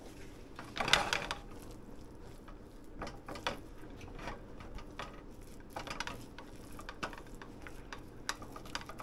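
Cookware and utensils being handled at a frying pan: a short scraping rustle about a second in, then scattered light clicks and knocks over a faint steady low hum.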